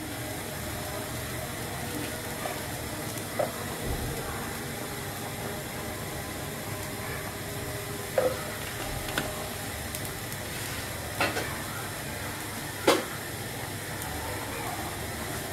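Cooking oil in a nonstick frying pan on a gas burner: a steady low hiss and faint sizzle, with four light knocks, the sharpest near the end.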